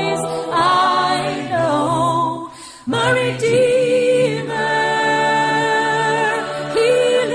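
Christian song: sung voices holding long, wavering notes, with a brief drop in loudness just before three seconds in.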